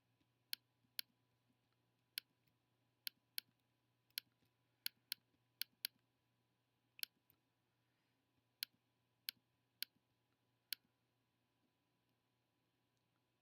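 Computer mouse clicking: sharp single clicks, often two in quick succession, at irregular intervals, stopping about eleven seconds in.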